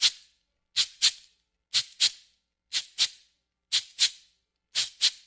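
Cabasa, its steel bead chain twisted back and forth against the metal cylinder. It makes short, bright rasping shakes in pairs, about one pair a second, in a steady rhythm.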